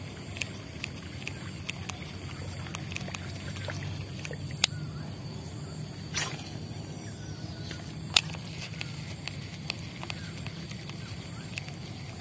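Fishing reel being wound in during a lure retrieve, with regular small ticks about two to three times a second. Two sharper clicks stand out, with a brief rustle between them.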